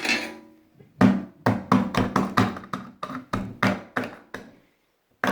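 A quick series of knocks and taps on a plastic slime tub, about five a second, as it is worked open; they stop shortly before the end.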